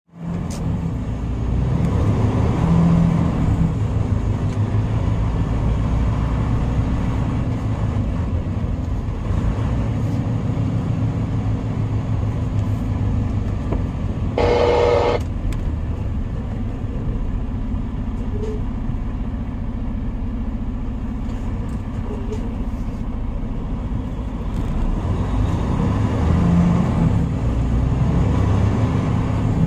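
Tractor-trailer's diesel engine and tyres on a wet road, heard from inside the cab while driving slowly: a steady low rumble that swells slightly now and then. About halfway through comes one short tone lasting under a second.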